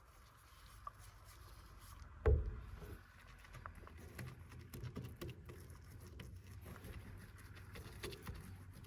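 A single dull knock a little over two seconds in, then light, scattered taps and rustles of hands handling materials and tools during fibreglass roof-patching work.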